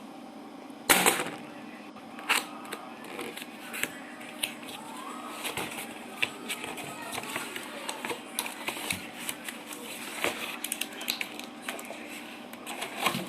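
Cardboard keyboard box being opened with a box cutter: irregular clicks, scrapes and rustles of blade, tape and cardboard, with one sharp click about a second in.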